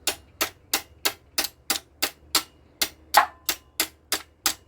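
Small hammer tapping quickly and evenly on a metal tool fitted to a stuck nut on the backhoe's engine, about three taps a second, with one harder tap about three seconds in.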